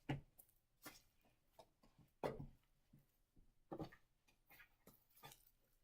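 Glue slime with fine decorative sand mixed in, stretched and squeezed by hand: faint, irregular sticky clicks and pops, a handful over a few seconds.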